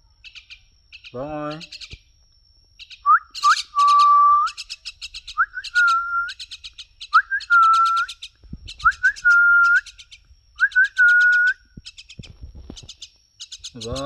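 A common myna calling in rapid harsh chattering notes, alongside a person whistling about five short notes that each flick up and then hold steady.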